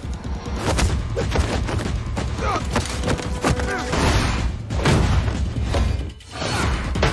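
Film fight soundtrack: dramatic music under a rapid run of punches, kicks and heavy thuds, with short grunts between the blows. The impacts briefly let up a little after six seconds, then resume.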